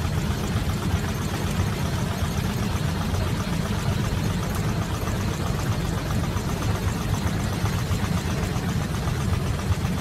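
Airliner cabin shaking violently, like a washing machine: a loud, steady low rumble with a fast shudder running through the fuselage and overhead bins.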